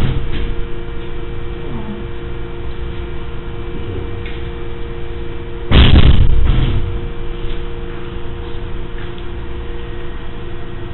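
Steady electrical hum over a noisy background on a security camera's audio track. About six seconds in there is one loud thud lasting about a second, with a few fainter knocks elsewhere.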